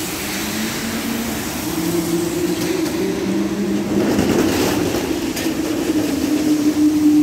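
Traffic on a rain-wet road: a steady engine hum with tyres hissing on the wet surface, the hiss swelling about halfway through as a car passes.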